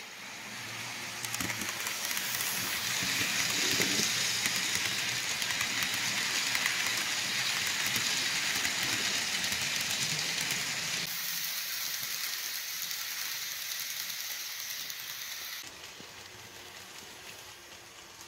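Model Southern Pacific 4449 Daylight steam passenger train running past close by: a steady rushing hiss that builds over the first few seconds and drops off sharply near the end.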